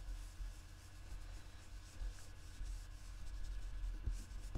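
Ink blending brush rubbed over paper card stock in light, faint strokes, working blue ink on as sky.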